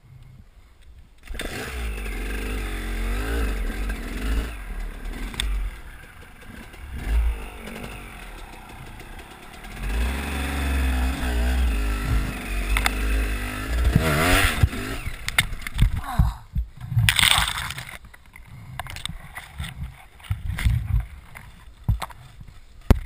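Dirt bike engine revving hard in bursts, its pitch rising and falling under heavy throttle, as it claws up a steep, loose trail. Clattering knocks come about two-thirds of the way through, and wind buffets the microphone.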